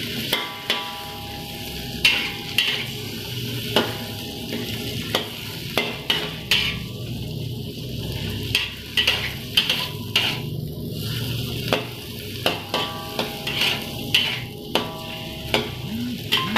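Metal spatula scraping and knocking irregularly against an aluminium wok as food stir-fries in hot oil, with a steady sizzle underneath. Some of the knocks leave a brief metallic ring.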